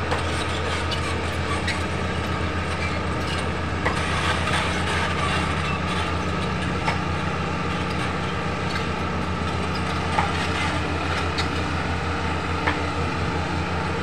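Crawler bulldozer's diesel engine running steadily under load, with a few sharp metallic clanks from its steel tracks as the machine moves along the bank.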